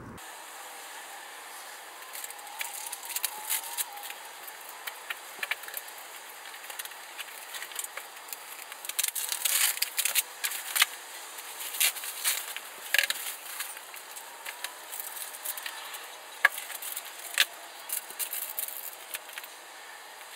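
Bubble wrap and packaging crinkling and rustling as it is handled and pulled off a windshield panel: irregular crackles, busiest in the middle.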